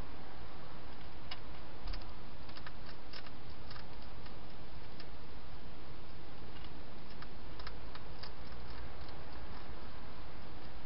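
A wild hedgehog eating from a dish, its chewing heard as irregular small clicks that come in clusters, over a steady hiss.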